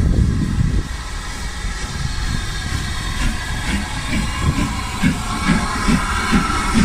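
Steam locomotive working, with a heavy low rumble at first and then regular exhaust chuffs coming about twice a second.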